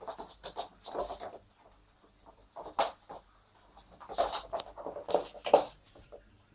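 Puppy playing, chasing a thrown toy across a laminate floor: several short, irregular bursts of scrabbling noise, the loudest about five and a half seconds in.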